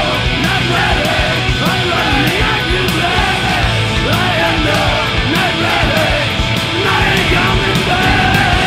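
Heavy metal / punk rock band recording playing loud and fast: distorted electric guitars, bass and pounding drums, with yelled vocals.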